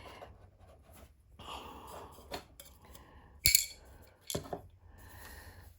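Screwdriver and small parts being handled while screws are taken out of a doll: scattered light clicks and taps, with one sharp knock about three and a half seconds in.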